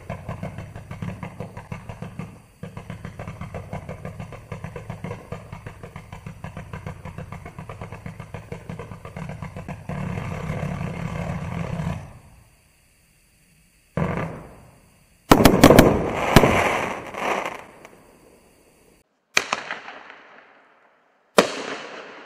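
Winda 'Golden Peacock' 149-shot consumer firework cake firing a rapid volley of shots, about four a second, thickening near the end and stopping about twelve seconds in. After a short pause, a few loud single bangs from the 9-shot 'Mother of All Bombs' cake follow, one with a long crackle, each dying away quickly.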